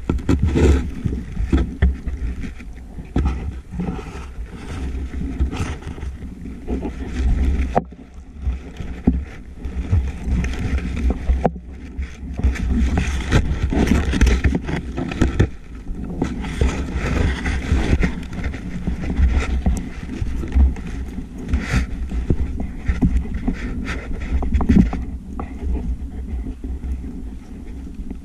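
Underwater noise heard through a camera's waterproof housing on a speargun: a steady low rumble of water moving past, with frequent clicks and knocks as the gun and housing are handled.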